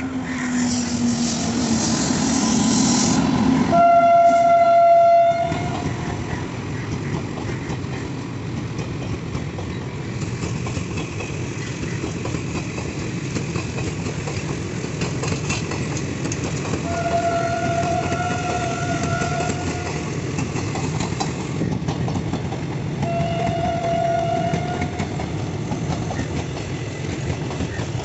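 Electric locomotive-hauled express passenger train passing close by: a loud rush of the locomotive going past, a long blast of its horn about four seconds in, then the steady rumble and clatter of the coaches' wheels on the rails. Shorter, fainter notes of the same horn sound a few more times later.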